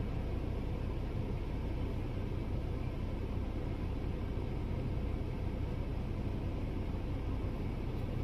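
Steady low rumble with a faint hiss, unchanging throughout, with no distinct events.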